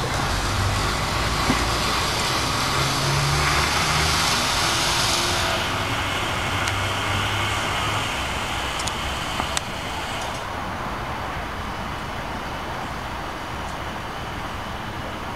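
1905 BC Electric interurban car running away along the track, its motors and wheels on the rails making a steady rumble with a low hum. The rumble is loudest at first and fades as the car draws off, with a few light clicks partway through.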